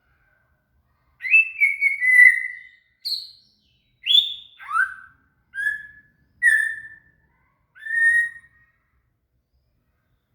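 White-rumped shama (murai batu) singing: a run of clear whistled phrases with short gaps between them, many notes sliding downward, ending a little before the close.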